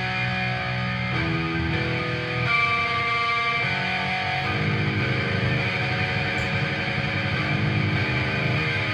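Guitar music: held chords that change every second or so, settling into a longer, denser chord from about four and a half seconds in.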